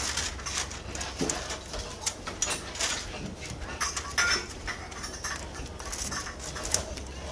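Irregular light clicks and rustling from a bamboo blind and its cord being handled as the blind is rolled up and tied to the railing.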